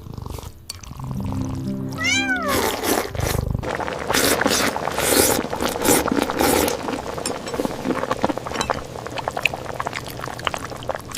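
A cat meows once, about two seconds in, rising then falling, over background music. It is followed by a long run of crackly, wet crunching and slurping eating sounds.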